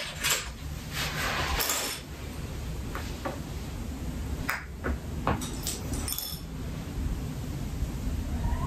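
Light, scattered clicks and taps of a small plastic sewing clip being picked up and fastened onto knit fabric, with the fabric shuffled and smoothed on the floor.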